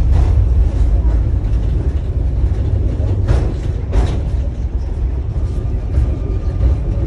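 Tram in motion heard from inside the car: a steady low rumble of wheels and running gear, with two sharp knocks about three and four seconds in.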